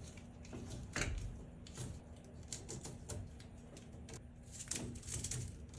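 Faint rustling and scattered light clicks of electrical cable being handled: the slit outer sheath being pulled open and the copper conductors drawn out, ticking against the metal breaker panel.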